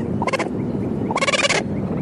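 An animal calling: two short, rough, pitched calls, the second longer, over a steady noisy background.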